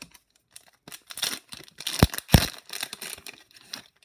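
Foil wrapper of an Upper Deck hockey card pack being torn open and crinkled, with two low thumps close together about two seconds in.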